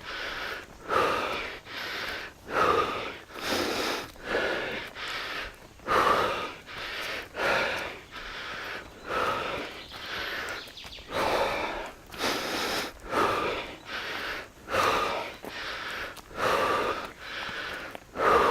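A person breathing heavily and rhythmically from the exertion of a steep uphill climb. Loud, regular in-and-out breaths come about one every second.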